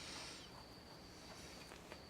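Near silence: faint room tone with a thin, steady high-pitched whine and a soft hiss in the first half second.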